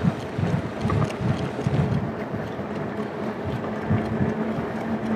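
Wind buffeting the microphone on a fat-tire e-bike pulling away in pedal-assist level 1, gusty and low, with a faint steady hum beneath.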